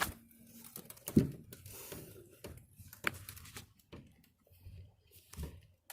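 Scattered light clicks and knocks of handling, with one louder thump about a second in and a sharp click a couple of seconds later.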